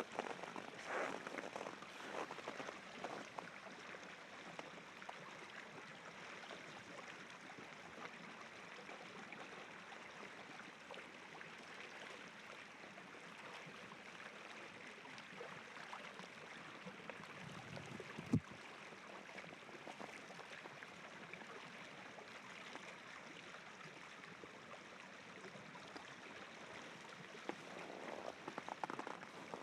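Steady rushing of river rapids below a snowy trail. Footsteps crunch in frozen snow for the first few seconds and again near the end, with one sharp click about two-thirds of the way through.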